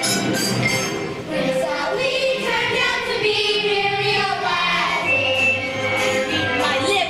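A musical-theatre song number, with children's voices singing over the accompaniment.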